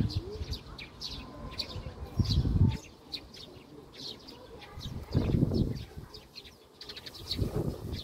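Small birds chirping over and over in short, high notes, several each second. Three brief low rumbles come in, about two, five and seven seconds in.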